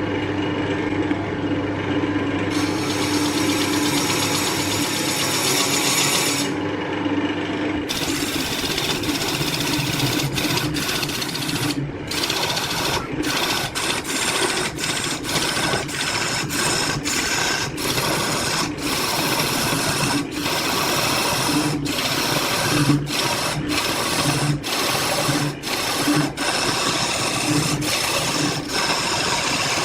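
Woodworking power tool running steadily while it works wood, with a steady motor tone. Brief gaps break the sound often in the second half.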